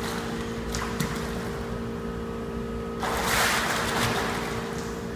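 Water splashing as a swimmer thrashes his arms at the surface of a pool, starting about three seconds in, over a steady low hum.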